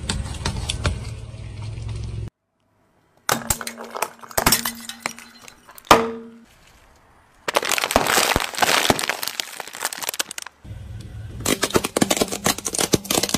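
A car tyre rolling over and crushing small plastic items and packets: several bursts of cracking, snapping and crunching, split by cuts and a short silence. A low rumble of the rolling tyre runs under the first and last bursts.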